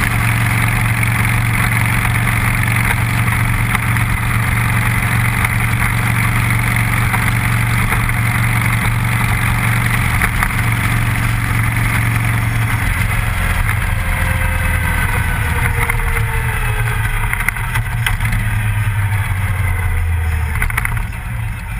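Cruiser motorcycle engine running steadily under way, with wind rushing over the bike-mounted microphone. A little past halfway the low note drops and falls away in pitch as the bike slows, and it gets quieter near the end.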